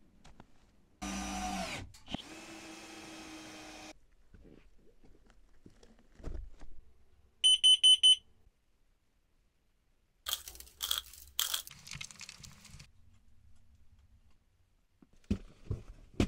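Carbon monoxide detector giving four loud, sharp, high-pitched beeps in quick succession about seven and a half seconds in. Earlier, a long squeak drops in pitch at its end, and a few sharp clicks follow the beeps.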